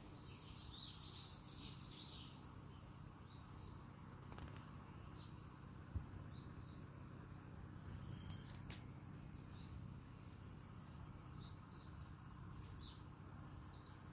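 Faint wild birds chirping: short high notes, in a cluster at the start and then scattered, over a low steady background rumble. A single brief thump about six seconds in.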